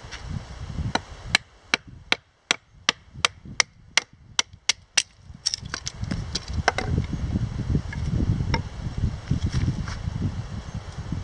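Wooden baton striking the spine of a knife that is being driven down through a piece of cedar to split off a flat plank. A quick, even run of sharp wooden knocks, about three a second, gives way about five seconds in to slower, uneven strikes.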